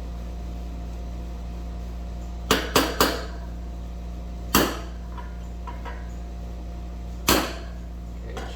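Hammer blows on a socket used as a drift, driving a new wheel bearing into a motorcycle's front hub. There are three quick strikes about two and a half seconds in, then single strikes about two and about four and a half seconds later, each with a short metallic ring.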